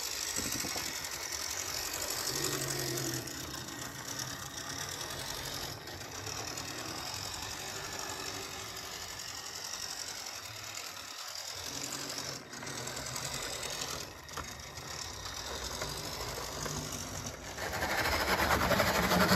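Old Tri-ang and Lima OO-gauge model locomotives running, their motors and worm gears making a steady mechanical grinding, still noisy after the worm gears and axles have been oiled. It gets louder about a second and a half before the end.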